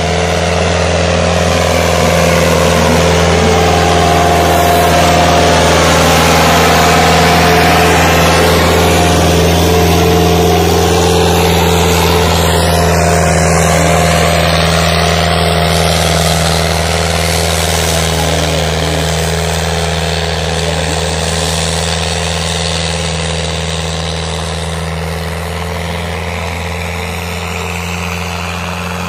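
Tractor diesel engine running steadily and hard under heavy load as it drags a wide disc harrow through soil; the drone eases off a little in the second half.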